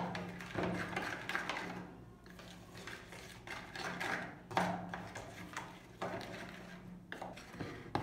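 Fork scraping and clinking against a mixing bowl in irregular strokes, stirring flour into a wet cookie batter.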